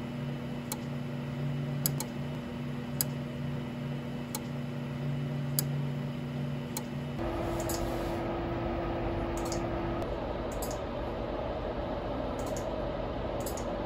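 Repeated sharp clicks about a second apart, over a steady electrical hum: a relay on the Centroid Acorn control's relay board switching as the spindle work light is turned on and off.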